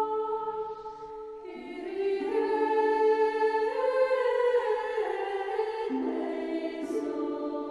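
Slow background music of long held chords that shift every second or two, with a brief quieter dip about a second in.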